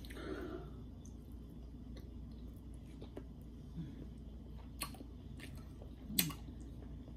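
A person chewing rotisserie chicken, with soft mouth sounds and a few sharp clicks; the loudest click comes about six seconds in.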